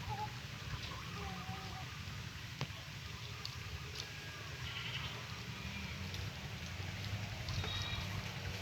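Goats bleating a few times, mostly in the first second or so, over a steady low hum.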